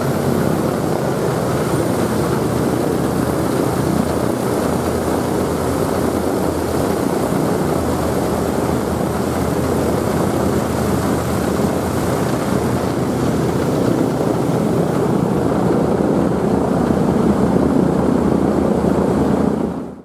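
Consolidated PBY Catalina flying boat's two radial engines running steadily on the ground with the propellers turning: a dense, low, unbroken drone that swells slightly near the end and then cuts off abruptly.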